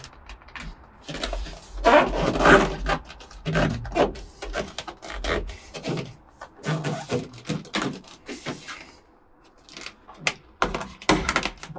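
Hands working a foil-backed butyl sound-deadening sheet onto a pickup's steel floor pan: irregular crinkling, rubbing and dull thumps as the sheet is shifted and pressed down.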